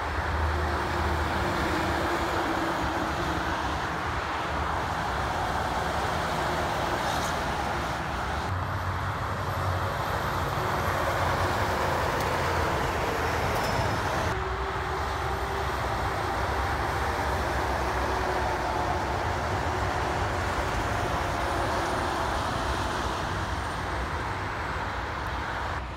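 Interstate highway traffic: steady tyre and engine noise of cars and heavy trucks going by, with the drone of diesel truck engines. The sound changes abruptly twice, where separate clips are joined.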